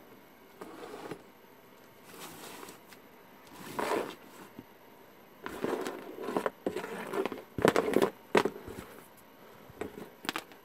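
Irregular handling noises of knocks, rustles and crackles as wires and test gear are moved about on a tabletop. The sharpest knocks come in a cluster about eight seconds in.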